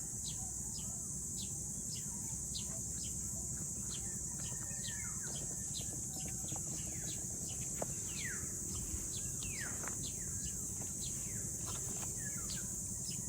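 Birds calling with many short, quick falling whistles over a steady, high insect drone, with a low, even rumble of background noise underneath.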